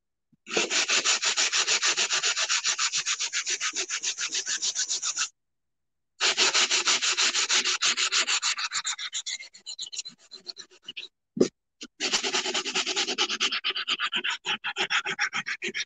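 Sanding sponge rubbed fast back and forth by hand on a ceramic tile coaster, a rhythmic scraping that wears the printed lettering off the tile face. The strokes stop for about a second a third of the way in, trail off, and pick up again after two sharp knocks just past the middle.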